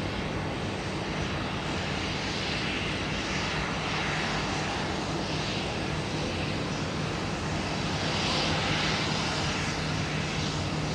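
Boeing 737 jet engines running at taxi power as the airliner rolls along the taxiway: a steady rushing noise that swells and eases in waves over a low steady hum, a little louder from about eight seconds in.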